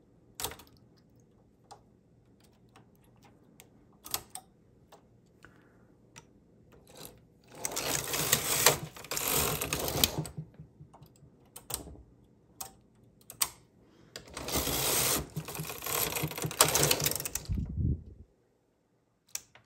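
A Singer 328 knitting machine's carriage is pushed across the needle bed twice, knitting two rows: a dense run of clicks and rasps, about three seconds long about seven and a half seconds in, and about four seconds long from about fourteen seconds in. Before that come light scattered clicks of a metal transfer tool moving stitches on the needles for the decreases.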